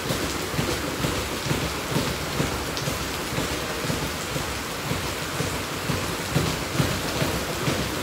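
Boxing sparring: padded gloves thudding on gloves and headgear and feet scuffing the ring canvas in irregular soft thumps, over a steady rain-like hiss.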